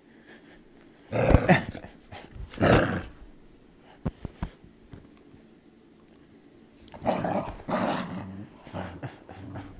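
Poodle growling in three rough bursts as a hand reaches toward the bone she is guarding: possession aggression (resource guarding) over a toy. The first burst comes about a second in, a short one about three seconds in, and a longer one about seven seconds in.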